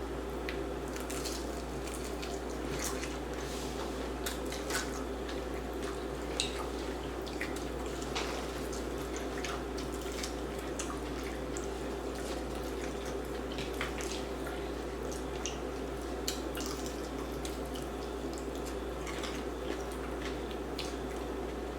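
Close-up eating sounds: wet chewing and lip-smacking on dry-rub barbecue chicken wings, short clicky mouth noises scattered every second or so over a steady low hum.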